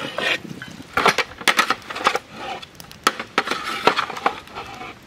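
A metal spatula scraping and clinking against a large aluminium pot in irregular strokes, turning wet chunks of katla fish to coat them with turmeric and salt.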